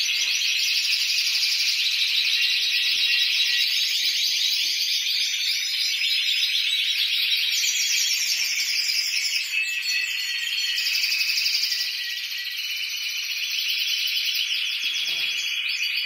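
Many Spanish Timbrado canaries singing together, a dense, high chorus of fast metallic trills and rolls that keeps going without a break.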